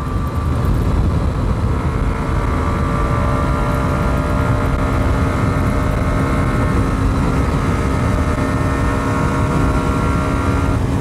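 Hero Xtreme 125R's 124.7 cc single-cylinder engine pulling steadily at high speed in fifth gear, at around 100 km/h, its note holding even until it breaks off near the end. Heavy wind rumble on the microphone runs under it.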